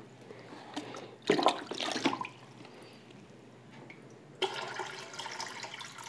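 Water poured by hand from a container into an aquarium, splashing into the tank. The loudest splashes come between about one and two seconds in, and a steadier pouring sound starts at about four and a half seconds.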